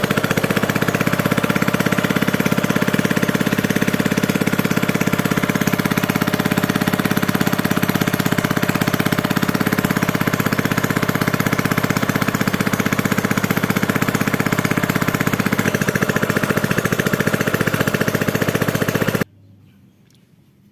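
Honda GX four-stroke small engine running fast and loud, a rapid steady pulse that cuts off suddenly near the end. The engine is said to run with a stutter, not smoothly.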